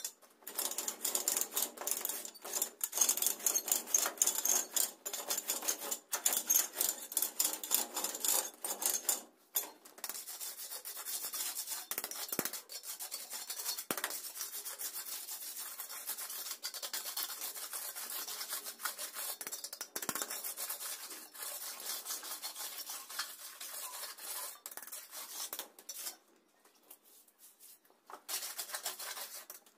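Rough scraping and rubbing of dry terrazzo mix being worked by hand: a trowel scooping from a bucket and the mix scattered and rubbed across the floor. The scraping is densest over the first nine seconds, goes on more evenly after a brief break, and stops briefly before one last short burst near the end.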